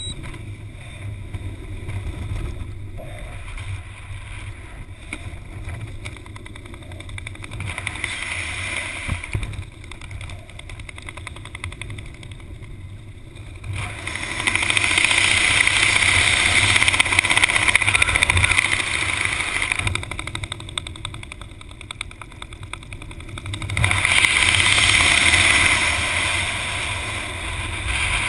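Wind rushing over a GoPro's microphone under an open parachute canopy, a steady low rumble that swells clearly louder twice, about halfway through and again near the end.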